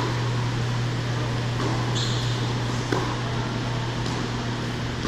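Steady low hum of an indoor tennis hall's ventilation, with a few sharp racket-on-ball strikes during a rally, the loudest about three seconds in, and a brief high squeak about two seconds in.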